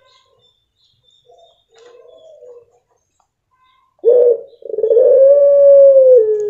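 A puter pelung, a long-voiced breed of domestic Barbary dove, cooing. About four seconds in it gives a short note, then one long held coo that drops in pitch as it ends.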